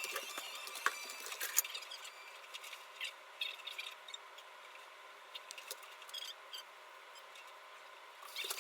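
Household tidying sounds, sped up: scattered small clicks, taps and rattles of things being handled and put away, over a faint hiss.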